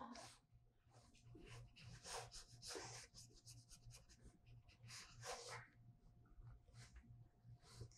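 Faint, irregular scratchy strokes of brush-pen tips on paper: a grey Pentel brush pen and a water brush dabbing and moving ink wash. A faint steady hum runs underneath.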